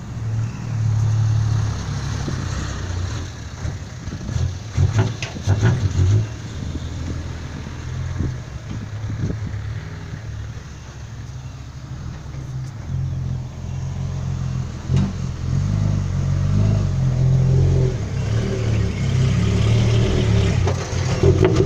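Diesel dump truck engine running with a heavy low rumble, the revs rising and falling, and a few sharp knocks about five to six seconds in.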